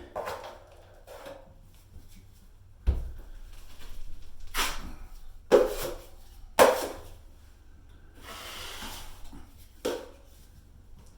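Drywall knife scraping and spreading joint compound over a wall, with several sharp clacks and knocks between strokes and one longer scrape near the end.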